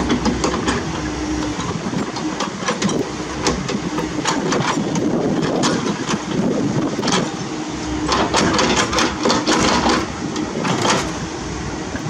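Komatsu PC78US mini excavator's diesel engine running under hydraulic load while it moves its Everdigm EHB06 hydraulic breaker, with irregular sharp metallic clanks and knocks that come thickest about two-thirds of the way through.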